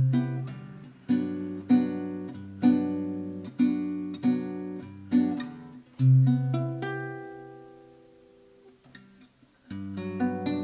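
1980s Del Vecchio Top Sound nylon-string classical guitar played fingerstyle: plucked chords roughly once a second, then a chord about six seconds in left to ring and fade away. Playing starts again near the end with quicker plucked notes.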